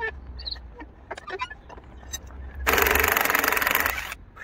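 A cordless impact wrench hammering on a suspension fastener for about a second and a half, starting two-thirds of the way in, after a few light clinks of tools being handled.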